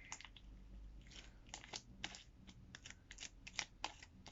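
Clear glue slime being mixed with activator in a bowl: faint, irregular sticky clicks and pops, several a second.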